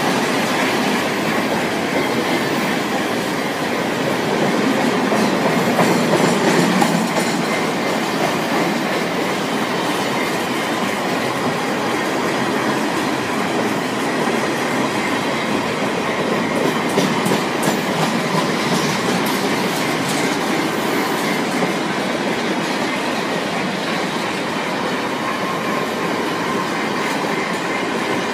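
Container flatcars of a long freight train rolling past at close range, a steady clatter of steel wheels over the track, a little louder about six seconds in.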